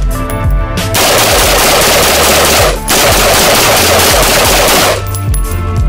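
AR-15 rifle firing 5.56 rounds in rapid semi-automatic succession. A few separate shots come first, then from about a second in the shots run together into one continuous stretch of fire, with a brief break near the middle, lasting until near the end. Background music plays underneath.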